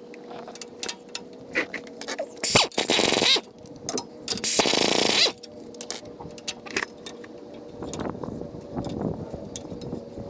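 An impact gun runs in two short bursts, about two and a half and four and a half seconds in, working the bolts of a bracket under the truck. Between the bursts there are clicks and knocks of metal tools and parts, with some scraping.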